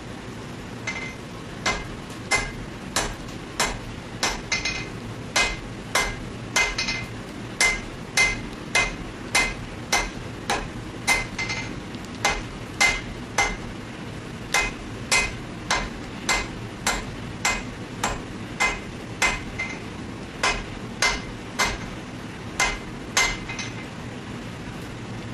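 Steady, regular hammer blows on metal, about one and a half a second, each ringing, as in hand-forging a steel blade. They begin about a second in and stop shortly before the end.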